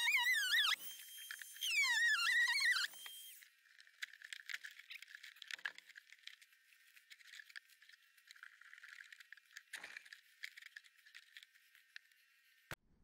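Handheld Harbor Freight oscillating multi-tool with a wood-cutting blade, run in two short bursts of a second or so as it cuts into fiberglass-covered plywood flooring; its high whine wavers in pitch under the load. After that come faint scratching and crackling sounds.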